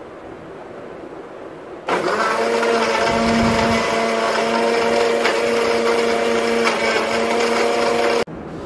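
Electric countertop blender switched on about two seconds in, running steadily with a hum as it blends milk, sugar and chocolate into a shake, then switched off abruptly near the end.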